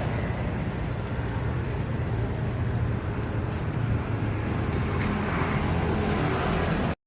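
Steady low background rumble with a few faint ticks, cutting off abruptly near the end.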